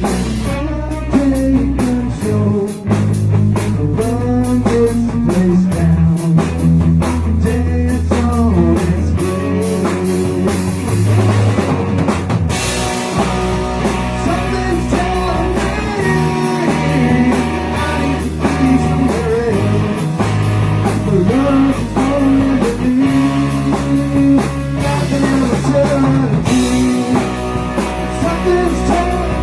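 Rock song played by a band: guitar and drum kit over steady low notes that change every second or two.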